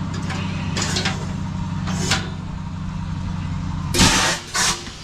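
Pneumatic apple cannon firing, a loud, sharp blast of air about four seconds in and a shorter one just after, with smaller hissing bursts earlier, over a steady low mechanical hum.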